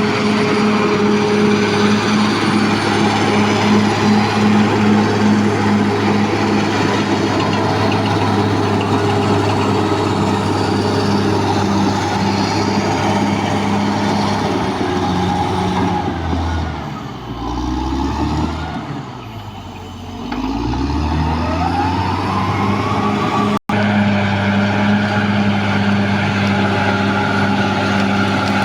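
Caterpillar D6R XL bulldozer's diesel engine running steadily under load; a little past halfway the revs drop and the sound falls away, then the engine climbs back up to speed. A split-second dropout near the end, after which the engine runs on steadily.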